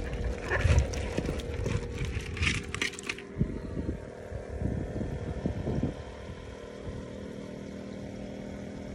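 A hand rummaging through live shrimp in a bucket, with crisp rustling and clicking for about the first three seconds. Under it runs the steady hum of a live-bait cooler's aerator pump, with a few low knocks partway through.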